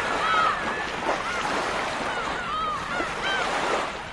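Surf washing steadily, with short high bird cries repeating every half second or so.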